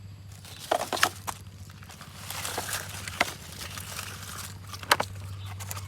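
Handling noise: a few sharp clicks and knocks with some rustling, over a steady low hum.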